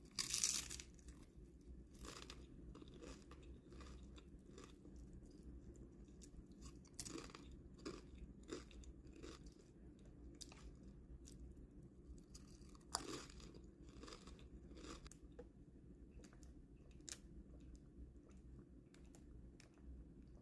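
Close-up eating sounds from a veggie burrito bowl: faint chewing and crunching with scattered sharp clicks. The loudest crunches come right at the start and again about thirteen seconds in.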